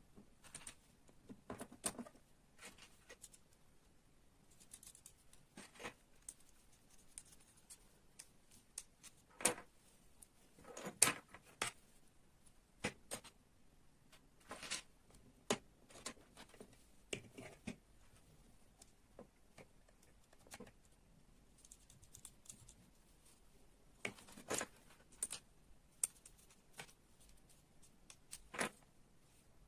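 Small model-kit parts clicking and rattling as they are handled and fitted together, in short irregular taps.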